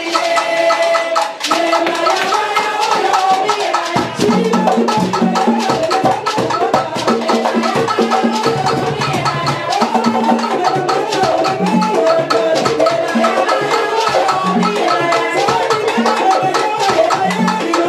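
Live Cuban rumba: several women singing over hand-played conga drums and dense hand percussion. Deep drum tones come in strongly about four seconds in.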